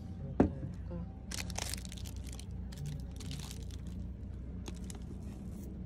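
Plastic food packaging crinkling and rustling in short bouts as items are handled. There is one sharp knock about half a second in.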